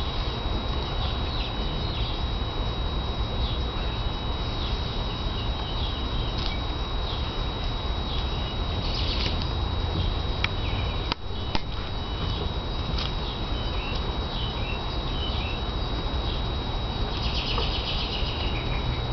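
Outdoor backyard ambience: birds chirping off and on over a steady low rumble and a constant high-pitched whine, with a couple of sharp clicks about halfway through.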